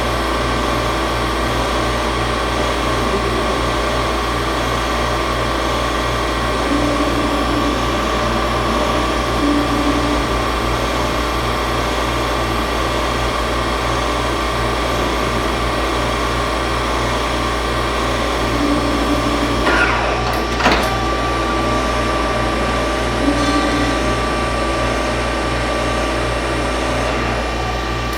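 5-axis CNC milling machine running: a steady motor hum and whine with a constant high tone, short tones now and then, and a sharp click about two-thirds of the way through.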